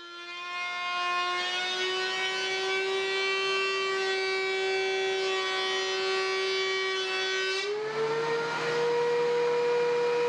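Benchtop thickness planer's motor whining under load as a board feeds through, its pitch edging up; about eight seconds in the whine glides to a higher steady pitch as the board clears the cutterhead and the motor runs free.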